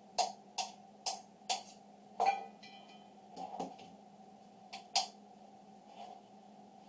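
Hammer taps driving the trigger-group pins out of a Remington 870 pump shotgun's receiver: sharp metal taps, five in quick succession, the last of them followed by a brief metallic ring, then a few more taps a couple of seconds later.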